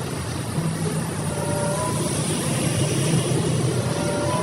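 Steady rush of running water washing mud off a toy truck.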